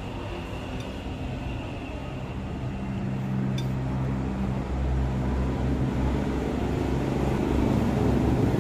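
A motor vehicle engine running with a steady low hum that grows gradually louder, as if drawing closer. A single light click comes about three and a half seconds in.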